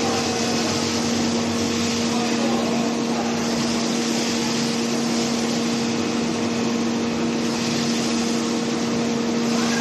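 Automatic spiral-potato frying machine running: a steady machine hum under a constant hiss of hot oil bubbling as the skewered potatoes pass through the fryer.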